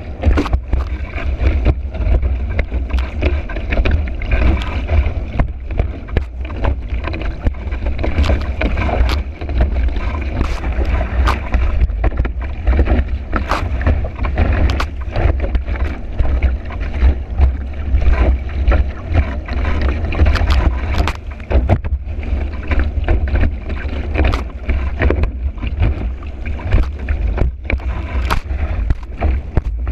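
Board planing fast over choppy water in high wind, heard from a camera mounted on the board: a constant low rumble of wind buffeting the microphone, with frequent sharp slaps and splashes as the board hits the chop.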